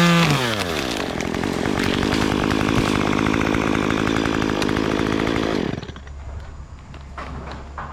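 Chainsaw engine at high revs, falling in pitch within the first second, then running at lower, uneven revs before cutting off abruptly about six seconds in, leaving faint background noise.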